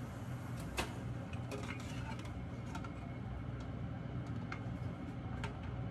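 Faint, scattered clicks and clinks of a metal spoon and pliers against a stainless steel bowl as chocolate is stirred in a double boiler, over a steady low hum.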